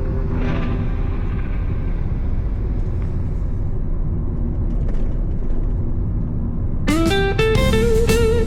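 Instrumental blues guitar. A held note dies away, then comes a lull over a steady low rumble, and about seven seconds in a loud electric guitar phrase starts, with bent notes.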